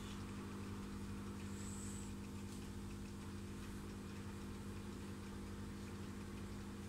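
Aquarium pump humming steadily, a low even drone with a faint hiss of water over it.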